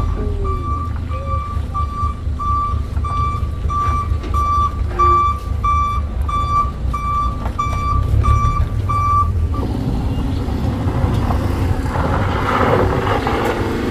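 Toyota HiAce van's reverse-gear warning beeper sounding evenly, about one and a half beeps a second, over the low running of its engine as it backs down a failed climb. The beeping stops about two-thirds of the way in, and the engine and a rougher noise grow louder near the end as the van pulls forward up the slope again.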